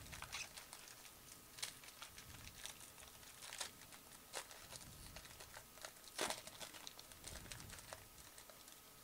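Foil wrapper of a 2015 Bowman Football card pack crinkling and tearing as it is opened by hand: faint, irregular crackles, the loudest about six seconds in.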